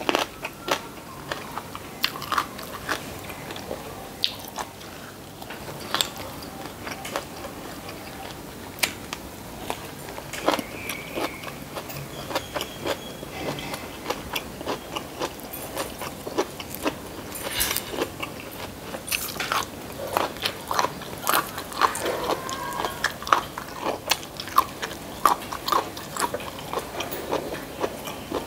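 Close-up chewing and crunching of food, with frequent short, sharp clicks and crackles.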